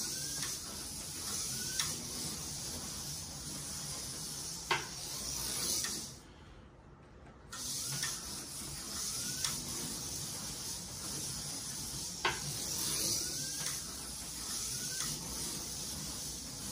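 Slot car with a TFX chassis running laps: a steady high electric-motor whine and hiss, with short rising whines as it speeds up and sharp ticks as it passes. The sound cuts out for about a second and a half around the middle, then picks up again.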